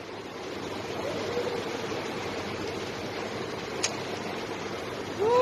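Steady rush of flowing water, with a single sharp click about four seconds in.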